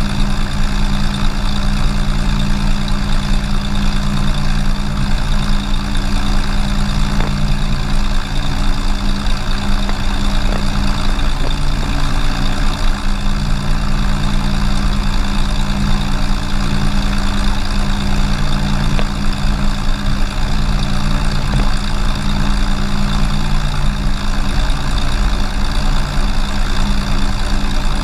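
Cessna 182's six-cylinder horizontally opposed piston engine running at a steady speed, with its propeller turning and the aircraft standing still on the ground.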